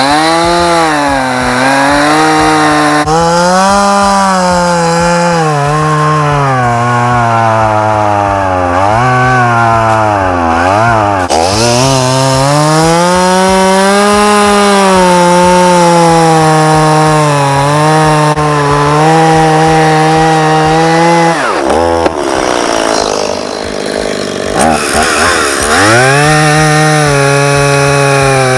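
Two-stroke Stihl chainsaw cutting wood, its engine speed sagging and recovering as the chain loads up in the cut. About 21 seconds in it drops back off the cut, then revs up again a few seconds later and carries on cutting.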